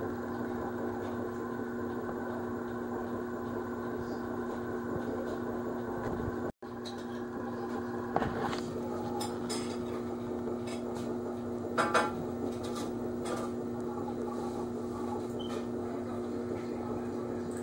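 A steady low mechanical hum from a household machine, with room noise. A few light clicks and taps come about eight seconds in and again near twelve seconds, and the sound cuts out for an instant about six and a half seconds in.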